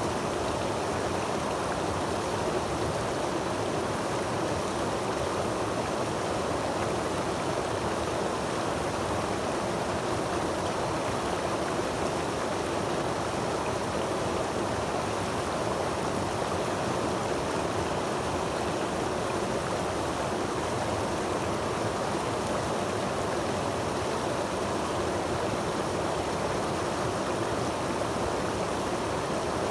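A creek cascading over granite rocks into a pool, a steady rushing and splashing of water without a break.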